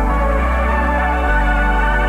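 Background synthwave music with sustained synth chords over a steady bass line that changes pitch about a second in.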